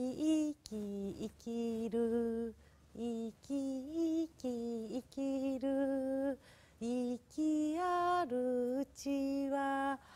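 A woman singing a Japanese song unaccompanied, in short phrases of held notes that step up and down in pitch, with brief breaths between phrases.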